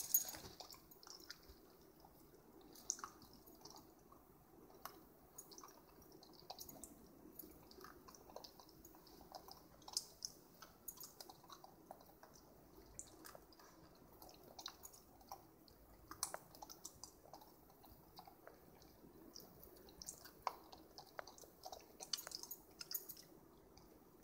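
Keeshond puppy chewing and licking an ice cube: faint, irregular wet clicks and chews.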